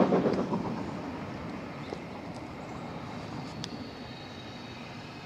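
A steam-hauled train going away after passing: the rumble and clatter of its wheels on the rails die down over the first second or so, leaving only a faint background. Faint high steady tones come in near the end.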